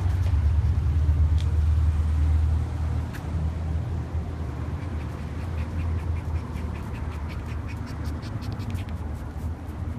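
A Chow Chow puppy's paws ticking lightly and quickly on paving stones from about halfway in, over a steady low rumble.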